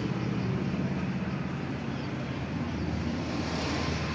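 A motor engine running steadily as a low hum, with a rushing noise over it.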